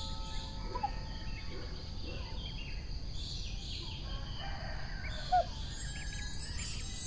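Outdoor pond ambience: a steady low background rumble with scattered short bird chirps and calls, one louder call a little past five seconds in.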